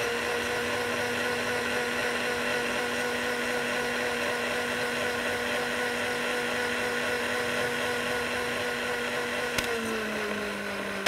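Countertop blender motor running steadily, blending a liquid mix of hot water, coconut oil, coffee and cream. Near the end a click comes and its pitch steps down, and then it starts to wind down.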